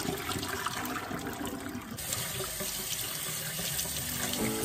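Water pouring from a pot through a fine mesh strainer into a sink, then, from about two seconds in, tap water running steadily over split peas held in the strainer as they are rinsed.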